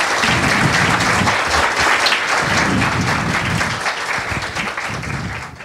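Audience applauding at the close of a talk, the clapping dying away near the end.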